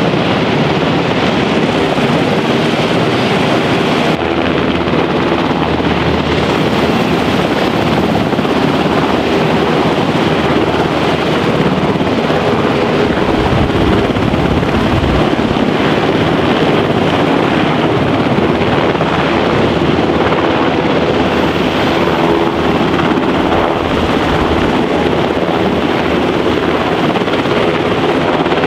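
Sikorsky UH-60 Black Hawk helicopters running loud and steady as they lift off and hover low, the twin turboshaft engines' whine blended with the rotor blades' noise.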